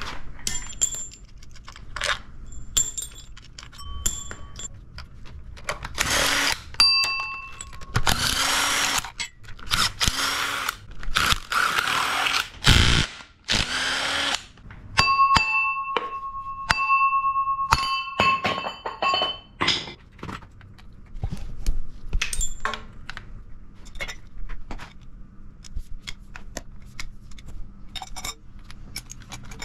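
Cordless drill fitted with a socket extension running in several bursts, driving out bolts from a Ford 5.4 two-valve V8 during teardown. Sharp metallic clinks and rattles of bolts and hand tools come throughout.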